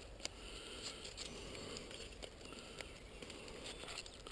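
Faint rustling with a few soft clicks and taps: a handheld camera being handled and moved while walking through grass.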